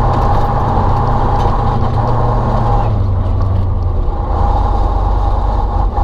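Ural timber truck's YaMZ-238 V8 diesel running steadily while driving; about three seconds in, the engine note drops a little lower and holds there.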